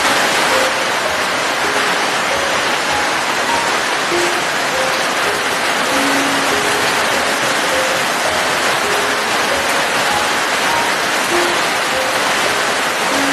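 Steady rain, a dense even hiss, with a slow, soft melody of single short notes playing underneath.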